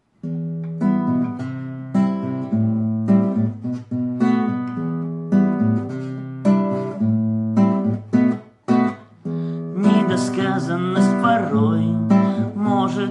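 Song intro on acoustic guitar, chords struck and ringing one after another. A singing voice comes in over the guitar about ten seconds in.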